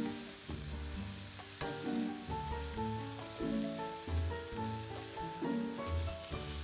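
Spinach and grated carrot sizzling as they fry in oil in a pan, stirred with a wooden spatula while the last of the liquid cooks off, under background music.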